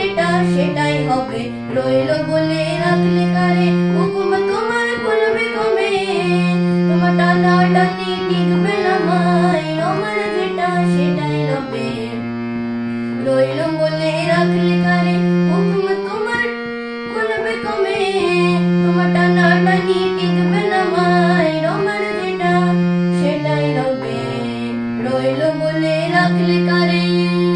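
A boy singing a Bengali patriotic song and accompanying himself on a harmonium. The harmonium holds sustained low notes that step up and down under his wavering vocal melody.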